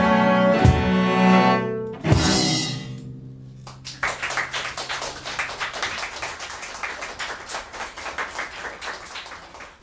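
Three cellos play the hard, accented closing chords of a metal arrangement, with a cymbal crash about two seconds in. A last low cello note holds and fades out, and audience clapping starts about four seconds in and carries on.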